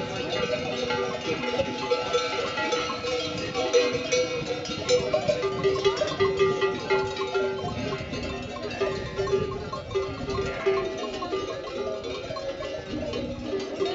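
Bells worn by a grazing flock of sheep clanking steadily, many ringing at once and overlapping.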